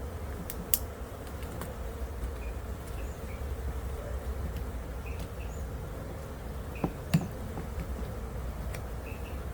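Honeybees buzzing steadily around an open hive, with a few sharp knocks: one near the start and two close together about seven seconds in.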